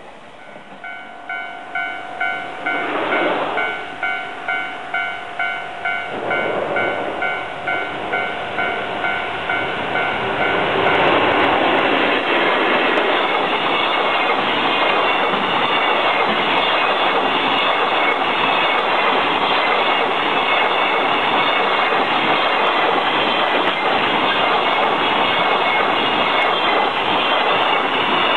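Japanese level-crossing warning bell ringing in a steady repeating beat. About ten seconds in, a 583-series electric sleeper train on the express Kitaguni passes at speed, its wheels rushing loudly over the rails and drowning out the bell.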